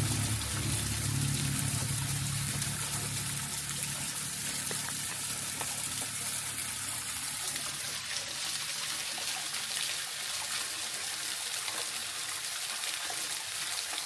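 Shallow river water trickling and flowing steadily. A low rumble fades out over the first few seconds.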